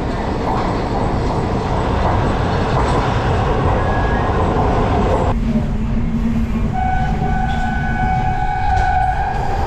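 Breda CQ312 rapid-transit railcar running with a dense, steady rumble. About five seconds in, the sound changes abruptly and a low steady hum sets in. A second or so later the train's horn starts a long, steady blast that is still sounding at the end.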